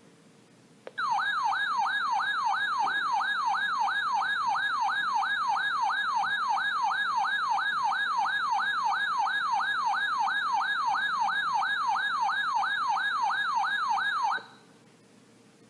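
Emergency alert attention tone: an electronic siren warbling rapidly up and down, about two and a half sweeps a second. It starts with a click about a second in and cuts off sharply near the end. It signals an incoming flash flood warning.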